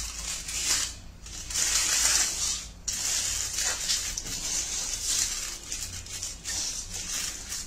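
Aluminium foil crinkling as hands crimp it around the rim of a bowl, in uneven bouts with two short pauses.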